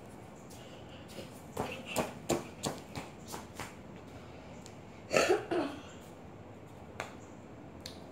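Scattered light taps and clicks of footsteps on a tile floor, with a brief indistinct voice about five seconds in.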